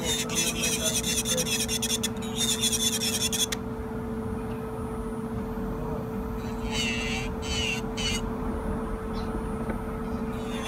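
Rechargeable electric nail drill (e-file) running with a steady hum while its bit grinds against a nail in rasping stretches: a long one at the start, broken briefly near two seconds, and a shorter one about seven seconds in.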